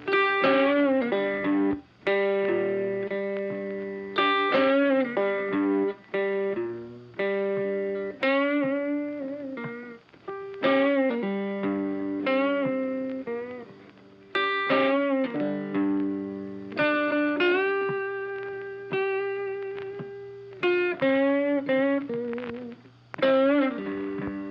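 Background music: a plucked guitar playing a string of notes, each ringing and fading, some of them bent.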